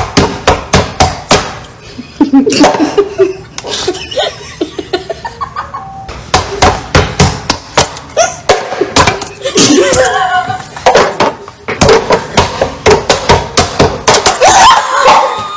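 Hands slapping the floor in quick runs of about four slaps a second, broken up by voices and laughter.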